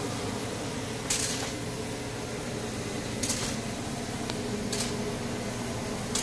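Shanklin shrink-wrap packaging line running: a steady machine hum, with a short high hiss every one and a half to two seconds.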